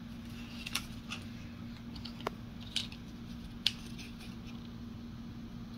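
Hobby knife cutting thin balsa-wood strips: about five short, crisp snips and clicks spread over a few seconds, over a faint steady low hum.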